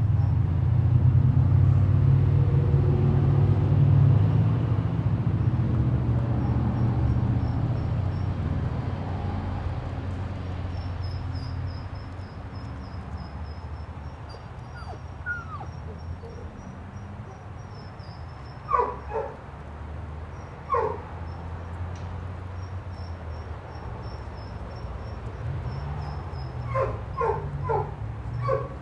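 A low rumble, loudest in the first several seconds and then fading. Later a dog gives short yips: a pair about two-thirds of the way in, one more soon after, and a quick run of four or five near the end.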